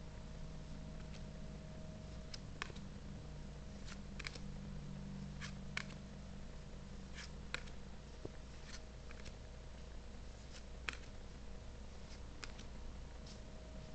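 Yu-Gi-Oh trading cards handled and laid down on a wooden table: about a dozen soft, irregular clicks and taps over a faint, steady low hum.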